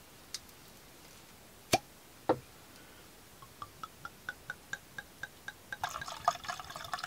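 Red wine poured from a glass bottle into a wine glass: a run of even glugs, about four a second, then the stream splashing into the glass near the end. Before the pour, two sharp knocks about two seconds in, as the bottle and corkscrew are handled.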